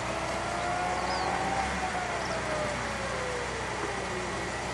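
Car engine revving as a slalom car accelerates through the cones. The engine note rises for about a second and a half, then falls steadily as the car pulls away.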